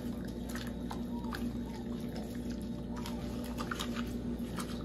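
Hands working salt and a wet ground-garlic marinade into small raw mojarras, with scattered soft wet squelches and clicks over a steady low hum.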